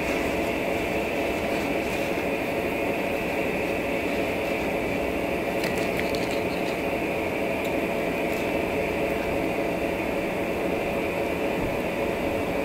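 Steady machine drone, a constant hum with a higher steady whine above it; a few faint clicks near the middle.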